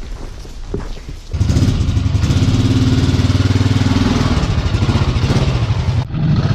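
ATV (four-wheeler) engine running steadily, coming in suddenly about a second in after a few light clicks, with a brief drop near the end.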